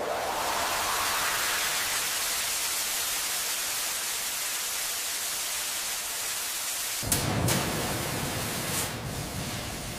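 Steady rushing hiss. About seven seconds in, a deep rumble joins it, with a few sharp cracks.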